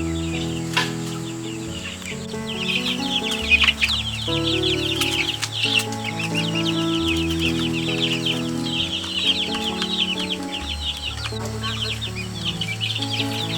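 Background music of held, slowly changing chords, with a flock of chickens chirping and clucking over it in rapid, overlapping high calls that thicken from about two and a half seconds in.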